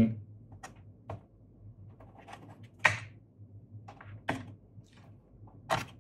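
Scattered key presses on the 8BitDo Retro Mechanical Keyboard's clicky switches, single clicks at uneven intervals, three of them louder than the rest.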